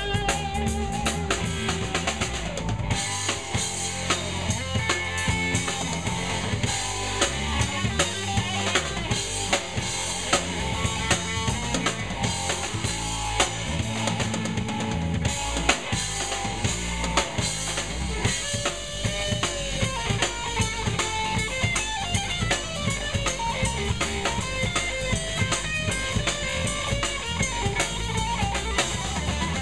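Live rock trio playing an instrumental jam: drum kit to the fore with bass drum and snare hits, under electric guitar and bass guitar.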